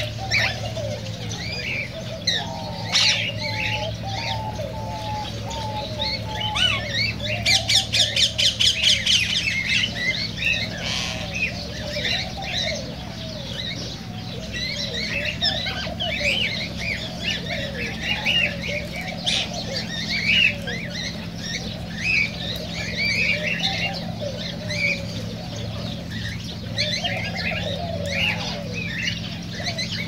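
A flock of cockatiels chirping and squawking in a busy, overlapping chorus, with lower wavering calls mixed in and a rapid rattling burst about eight seconds in, over a steady low hum.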